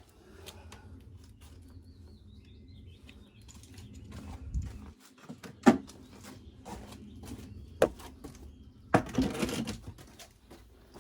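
Scattered small clicks and knocks of hands handling disc brake pads and caliper parts, with a sharp click about halfway and a louder rustling scrape near the end. Faint bird chirps about a third of the way in.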